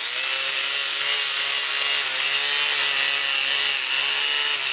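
Battery-powered grinder running continuously as it grinds carbon deposits out of a lawnmower engine's cylinder head. Its steady motor whine sags slightly in pitch now and then as it bears on the metal, over a harsh scraping hiss.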